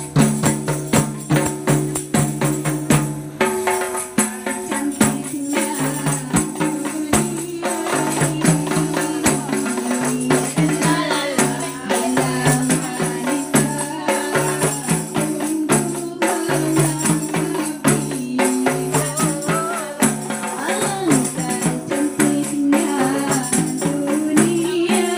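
Qasidah rebana ensemble: rebana frame drums beaten by hand and jingling tambourines in a steady interlocking rhythm, with a woman singing a melody over them.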